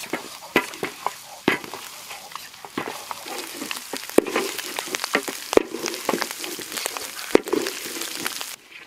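A red paste sizzling in hot oil in a wok while a spatula stirs and scrapes it, with sharp scrapes and clacks against the pan and a coconut-shell bowl as it is scooped out. The sizzling stops abruptly near the end.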